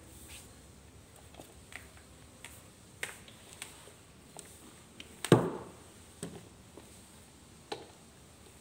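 Plastic head and handle of a flat floor-wiper mop with a dry sheet, pushed across a hard tiled floor: scattered soft clicks and taps, with one louder knock about five seconds in.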